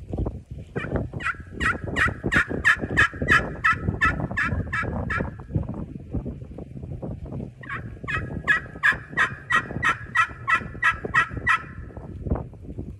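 Wormy chestnut crystal-over-slate turkey pot call, played with a striker, giving two long runs of yelps of about four notes a second, each note dropping in pitch. A low rumble runs underneath.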